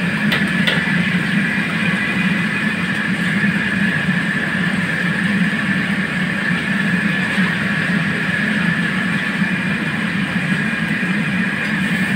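A whole grouper deep-frying in a wok of hot oil, sizzling steadily, over the steady roar of a commercial wok burner with a high whine running through it.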